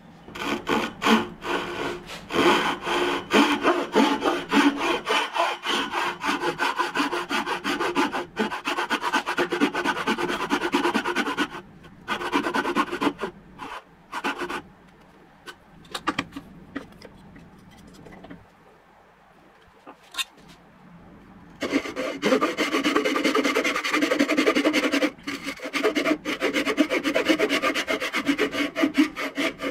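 Fine-toothed hand saw cutting through a wooden board in quick, short strokes: a long steady run of sawing, a few brief bursts, a pause of several seconds, then another steady run near the end.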